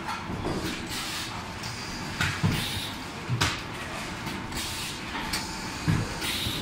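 Semi-automatic high-frequency PVC welding machine working: a few sharp clunks from the press head as it cycles, over a steady hum of workshop machinery.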